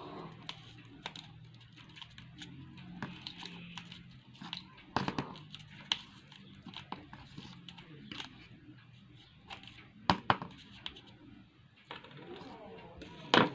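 Hands handling paper and cardboard while sellotape is pulled and torn off its roll: scattered crinkling and a few sharp snaps, the loudest about five seconds in, twice around ten seconds and near the end.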